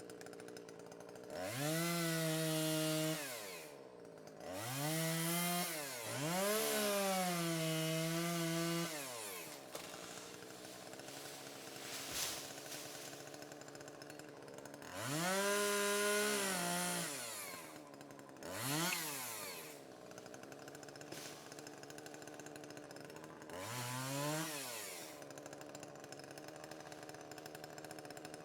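Chainsaw cutting small trees, revved up about five times. Each time the pitch rises, holds high for one to several seconds, then drops back to idle. The longest run is near the middle.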